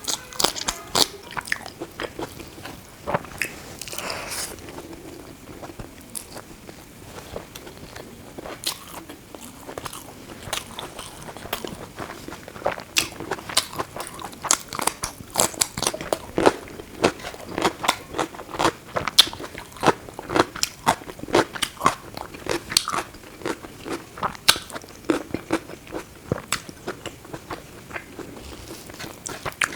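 Close-miked eating: biting and chewing food, with many quick crunchy bites in a busy, uneven rhythm that grows denser in the middle stretch.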